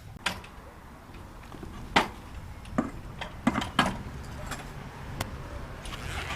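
A series of sharp knocks and clicks, about half a dozen at irregular spacing, the loudest about two seconds in, over a low steady rumble.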